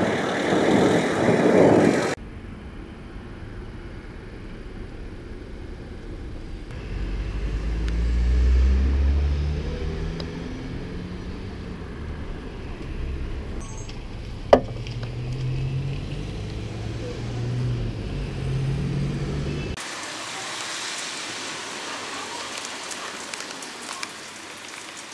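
Thunder from a nearby lightning storm: a loud rumble at the start that cuts off suddenly, then a deep rolling rumble that swells and fades a few seconds later. A vehicle engine hums low in the middle, and near the end an even hiss of rain takes over.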